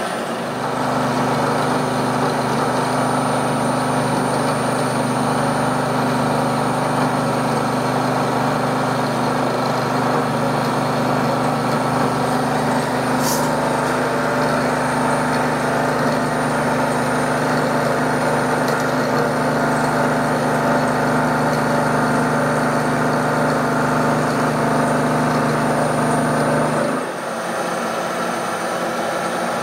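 Bridgeport milling machine running steadily, with a countersink used as a cutter taking light passes in mild steel: a steady hum and whine. A click comes about halfway through, and the low hum drops away suddenly near the end.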